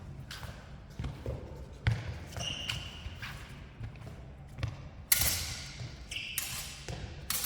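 Fencers' steel longswords clashing, with the blades ringing briefly twice, among the thuds of footwork on a hall floor during a sparring exchange.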